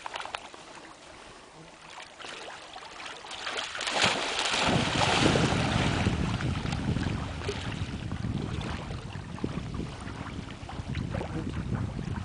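A black dog splashing into a lake and swimming out, the water splashing loudest about four seconds in. From then on wind buffets the microphone with a steady low rumble.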